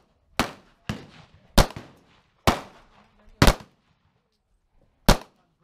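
Semi-automatic pistol fired in a steady string: six sharp reports about a second apart, one of them fainter, with a longer pause before the last.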